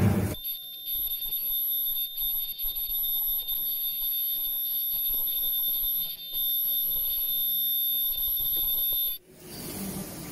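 A short knock, then a continuous electronic alarm buzzer: one steady high-pitched tone with a fainter, higher tone above it, held for about nine seconds and then cutting off suddenly.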